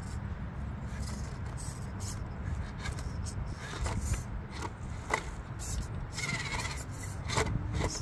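1/18-scale RC rock crawler climbing over quartz rocks: scattered clicks and scrapes of tyres and chassis on stone over a steady low rumble.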